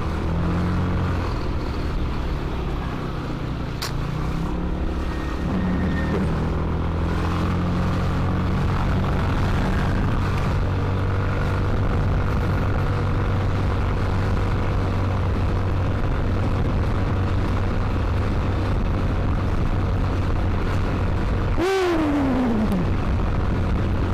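Yamaha NMAX scooter engine running steadily under the rider, with road and traffic noise around it. Near the end a pitched sound drops sharply in pitch.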